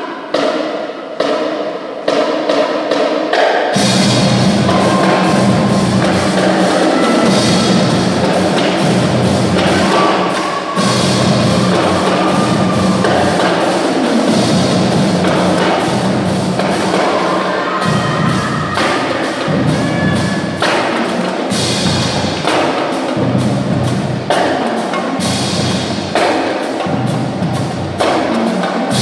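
School percussion marching band playing: snare drums, bass drums and cymbals, with a bell-like melody over the drums. A few scattered hits come first, then the full band comes in about four seconds in.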